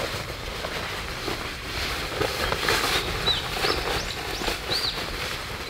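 Fabric of a light nylon work jacket rustling as it is pulled on. A bird gives several short chirps in the background in the second half.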